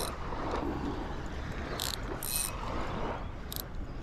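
Spinning reel's drag clicking in several short bursts as line is pulled off against it, testing the drag setting.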